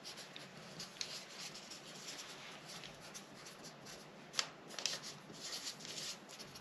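Faint rustling and scratching of a paper sewing pattern being handled and marked, with a sharper tap about four and a half seconds in.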